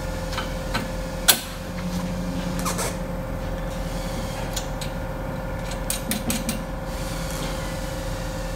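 Small metal clicks and taps from a steel bracket and bolt being fitted by hand to a go-kart steering column: one sharp click about a second in and a quick cluster of light clicks around six seconds in, over a steady hum.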